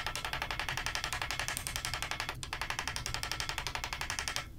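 Rapid, even tapping, about ten strikes a second with a brief break midway, stopping abruptly near the end: the steel pommel being hammered down tight onto the sword's tang through a leather pad, ahead of peening.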